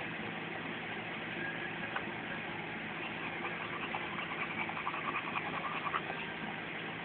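Car air conditioning blowing at full blast over the steady hum of the car's running engine, with an overheated bulldog panting.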